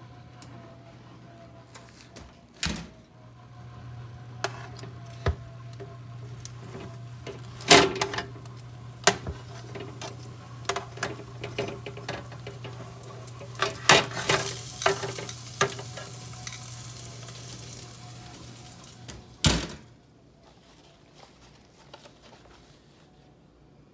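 Metal tongs clicking, knocking and scraping on a metal baking sheet as roasted spaghetti squash halves are turned over in an open oven, with a hot pan sizzling in places and a steady low hum under it. A loud thump comes near the end.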